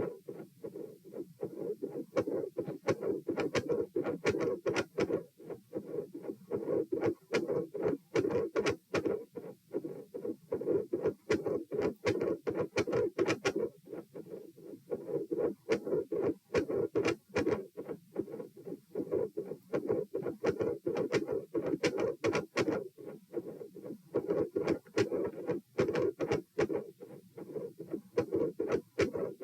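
Heart sounds through a stethoscope at the pulmonic area during repeated dry swallowing: an irregular run of beats and clicks, which the recordist takes for a swallowing-induced rise in heart rate with premature atrial contractions (PACs).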